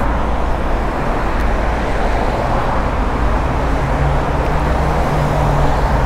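Steady road traffic noise from passing cars, with a low engine hum coming in about two-thirds of the way through.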